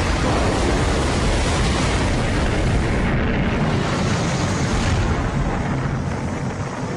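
Titan I missile exploding: a blast that jumps louder at the start, then a dense, steady rumble of the fireball burning.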